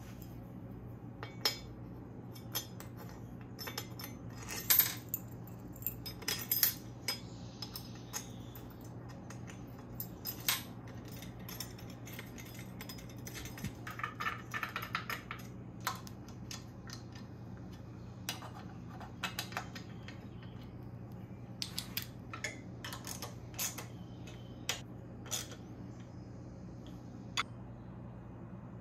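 Scattered metallic clinks and taps of bolts and hand tools as an aluminium engine lifting eye is fitted and bolted onto a BMW S54 cylinder head, over a steady low hum.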